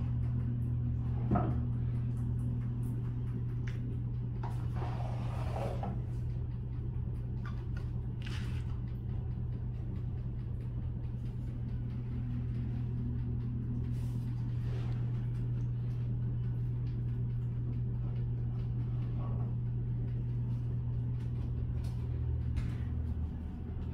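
Occasional knocks and clicks of high-heeled shoes being handled and set down on a tile floor, with a rustle about five seconds in, over a steady low hum that fades near the end.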